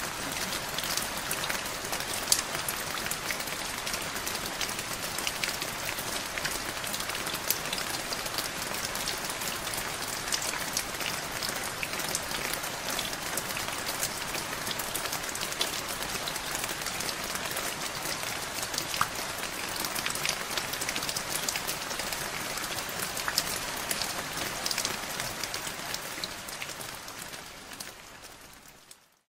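Steady rain sound: an even hiss with many small drop-like ticks, fading out over the last few seconds.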